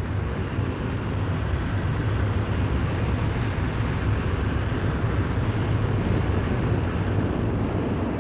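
Steady drone of an aircraft in flight, a low engine hum with a broad rushing noise over it.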